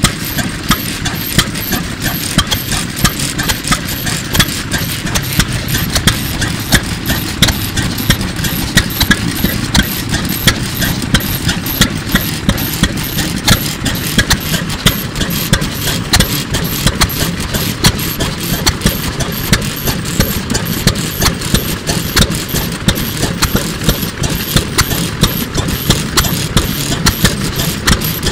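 OTORI 3 hp single-cylinder stationary engine from around 1940 running steadily, exhausting through a very small muffler with an even, sharp beat of firing strokes.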